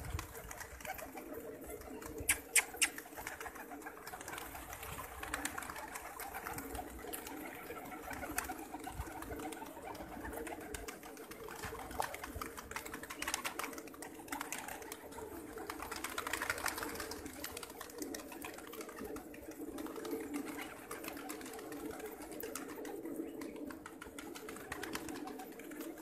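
A large flock of Gulgasht pigeons cooing together in a continuous, overlapping chorus. A few sharp clicks come about two to three seconds in.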